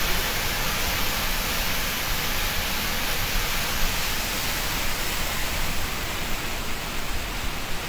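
Water jetting at full force from an open dam sluice valve releasing floodwater and crashing into the river below: a steady, unbroken rushing.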